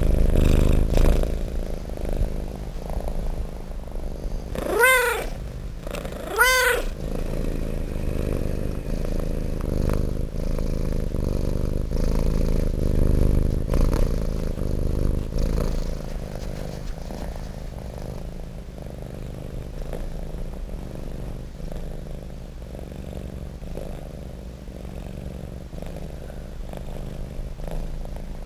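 Domestic cat purring steadily, close up, with two short meows about five and six and a half seconds in.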